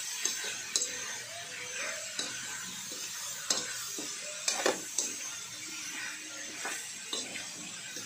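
A spatula scraping and knocking against a metal wok while pork and vegetables are stir-fried, with irregular sharp clinks over a steady sizzle.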